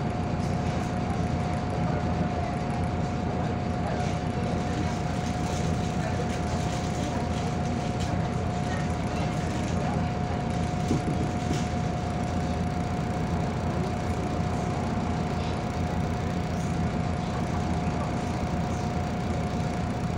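Inside a MAZ 105 articulated city bus under way: steady engine and road rumble with a constant high-pitched whine that holds one note.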